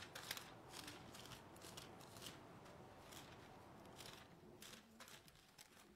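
Faint rustling of thin Bible pages being leafed through by hand, a scatter of soft paper flicks that dies away near the end.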